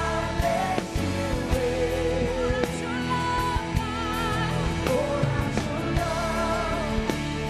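Worship band playing with a lead voice singing long wavering notes over sustained chords and drum hits.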